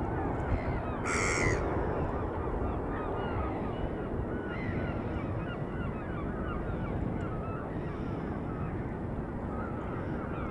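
A flock of birds calling continuously, many short calls overlapping, with one louder call about a second in. A steady low rumble runs underneath.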